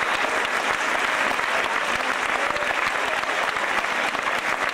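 Audience applauding steadily, a dense crowd of hand claps.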